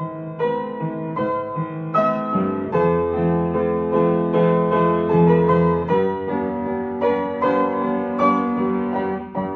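Soft piano music: gentle notes played one after another over held bass chords.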